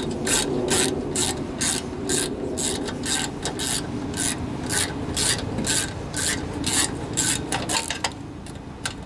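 Ratchet wrench clicking in quick back-and-forth strokes, about two a second, as bolts on a Tecumseh lawnmower engine are run down. There is a short pause near the end.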